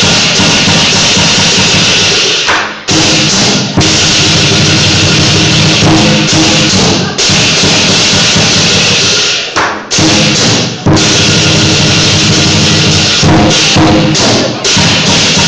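Loud drum-and-cymbal percussion music, with a dense wash of crashing cymbals over the drumming and short breaks every few seconds.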